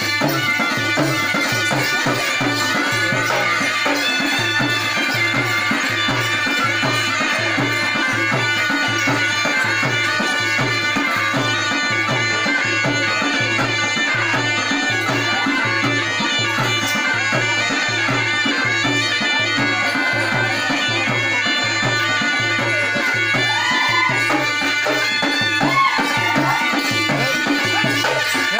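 Indian folk dance music: drums beating a steady rhythm of about two to three strokes a second under sustained, held melodic tones.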